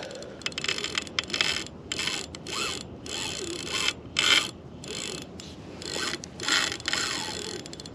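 Fishing reel ratcheting in a dozen or so short bursts as line is worked against a hooked sturgeon on light 20-pound braid.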